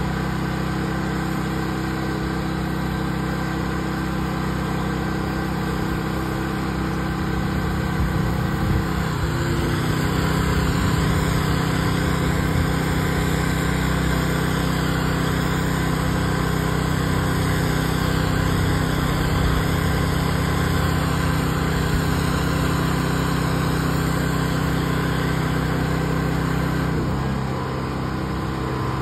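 Pressure washer engine running steadily under load, with the hiss of the wand's spray on wet concrete. About nine seconds in the engine note dips briefly and the spray grows louder; near the end the note bends again and the hiss falls away.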